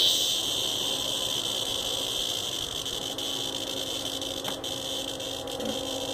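A captured cicada's distress buzz: a harsh, continuous high-pitched rasp, loudest at the start and then holding steady.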